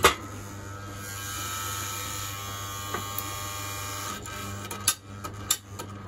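A switch click, then the electric heater's cross-flow fan motor buzzing and humming with power on. The fan is very stiff, its dry bearings barely letting it turn. The buzz drops about four seconds in, followed by a few sharp clicks.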